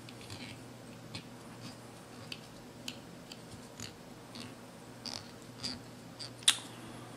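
Small ticks and clicks of tying thread and a metal bobbin holder being wrapped around a hook shank in a fly-tying vise to lash down a dumbbell eye. The ticks come irregularly, about two a second, with the sharpest near the end, over a faint steady hum.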